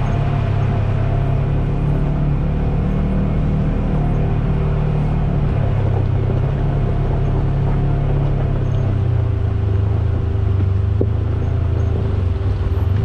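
Polaris General XP 4 side-by-side's twin-cylinder engine running steadily while driving along the trail. The engine note drops slightly about nine seconds in.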